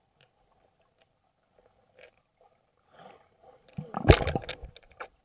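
Water splashing and sloshing: a few faint splashes, then louder, irregular splashing from about four seconds in.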